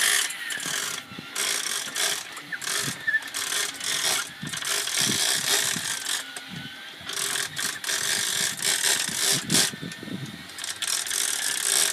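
Heavy big-game fishing reel being cranked by hand, its gears giving an uneven mechanical clicking as line is wound in.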